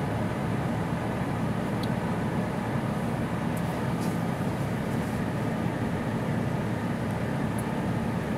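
Jeep Wrangler JK's engine running at low revs as it crawls up a steep rock slope, heard from a distance as a steady low drone. A few faint, short high ticks sound over it.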